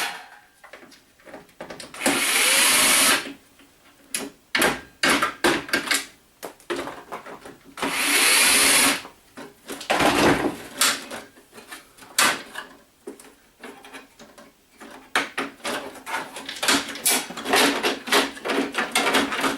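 Power drill running in two spells of about a second each, driving screws out of a printer's casing. Between them come many clicks and knocks of plastic parts being handled.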